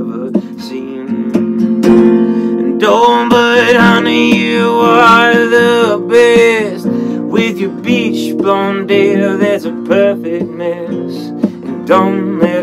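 Steel-string acoustic guitar, capoed, strummed steadily to accompany a man singing a slow song.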